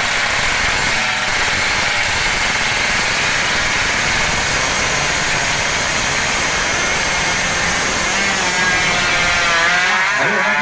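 Tuned 116 cc underbone motorbike engine running hard at high revs, a loud, steady rasp; near the end its pitch climbs as it revs higher.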